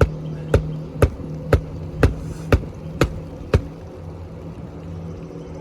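Hammer driving a 1.25-inch roofing nail into a new shingle: eight sharp, even strikes about two a second that stop a little past halfway. A steady low hum runs underneath.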